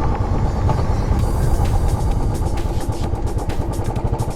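Royal Enfield Classic 500 single-cylinder engine running steadily under way, a fast low thumping.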